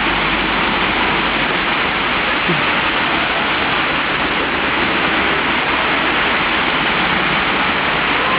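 Heavy rain pouring down, a loud, steady hiss of water with no let-up.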